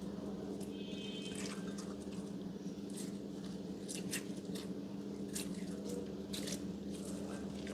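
Slime being squished, with irregular short sticky pops and crackles, over a steady low hum.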